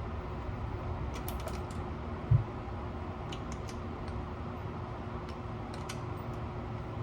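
Hand work on an engine cylinder: scattered light clicks and taps in small clusters, with one dull thump a little over two seconds in, over a steady low background rumble.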